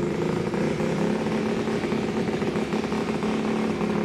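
A motor engine running steadily at an even pitch, typical of a small motorcycle-type engine idling.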